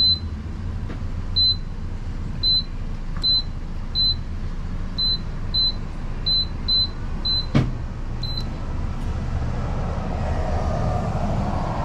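Gas pump keypad beeping as a number is keyed in: about eleven short, high, identical beeps at uneven spacing, one per key press, with a sharp click near the end of them. A steady low hum runs underneath.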